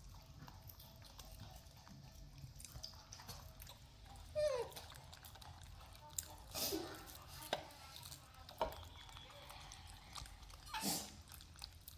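Pet monkeys giving a few short squeaks and calls over a low background hum. The loudest is a quick falling squeal about four seconds in, and sharper sounds follow every second or so later on.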